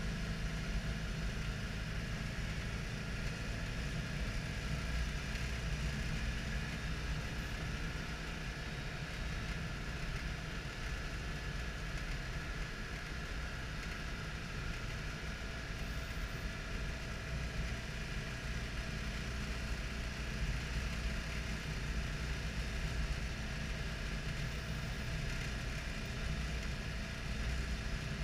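Citroën Dyane 6's air-cooled flat-twin engine running steadily on the move, heard from inside the cabin, with an even hiss of road and wind noise.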